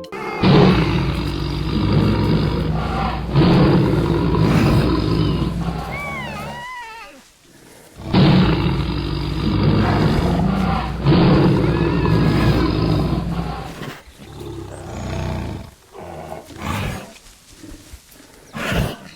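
A big cat roaring and growling in two long, rough bouts of about six seconds each with a short pause between them, followed by shorter, quieter growls near the end.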